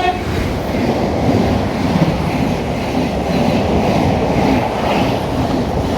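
Class 37 diesel-hauled train passing close by at speed: a steady loud rumble of wheels on the rails with some clatter over rail joints.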